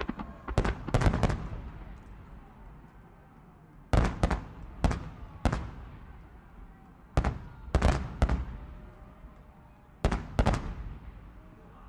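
Fireworks bursting overhead in volleys of sharp bangs, each followed by a rolling echo that fades away. Four volleys come a few seconds apart, each a quick run of two to five bangs.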